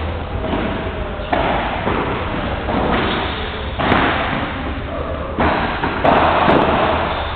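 Padel rally: a ball struck by padel rackets and rebounding off the court walls, four sharp hits a second or two apart, each ringing on briefly.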